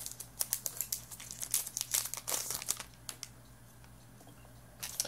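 Crinkling of a hockey-card pack's wrapper as the cards are slid out and handled: a quick run of crackles over the first three seconds, then quiet, with one small click near the end.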